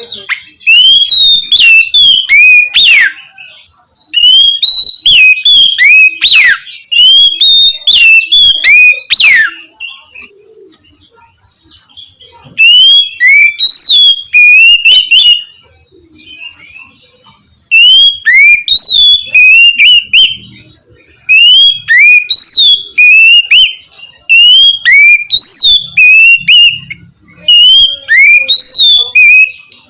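Oriental magpie-robin (kacer) singing its loud, clear 'ngeplong' song: phrases of rising and falling whistled notes, broken by a couple of pauses of a few seconds.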